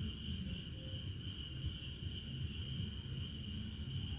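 Steady, high-pitched insect chirring, over a low, uneven rumble.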